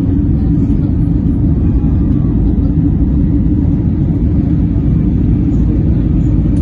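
Cabin noise of an Airbus A320neo in its climb after takeoff: a steady, loud, low rumble from its CFM LEAP-1A engines and the airflow, heard from a window seat over the wing.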